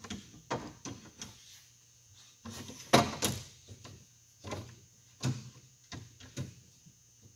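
Metal router-sled rail being fitted and slid into the metal track on an epoxy form: a scatter of clunks and clicks with some scraping between them, the loudest knock about three seconds in.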